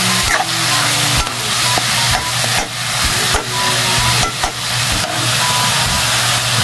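Ground meat and sliced sausage sizzling in a metal wok while a metal spatula scrapes and turns them, the scrapes coming about twice a second over a steady frying hiss.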